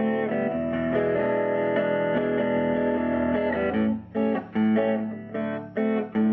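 Electric guitar, a Fender Mustang with P90 pickups, played through a 1951 Gibson BR-6 tube amplifier with its volume around 4. Held, ringing chords for nearly four seconds, then a run of short chopped chords with gaps between them.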